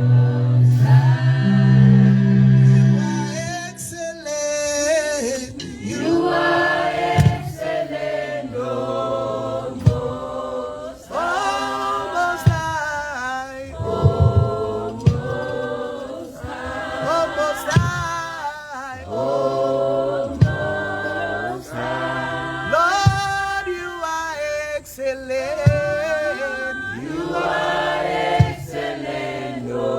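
Group of voices singing a gospel worship song together, largely unaccompanied after a low sustained bass note fades about three seconds in, with a sharp percussive hit every few seconds.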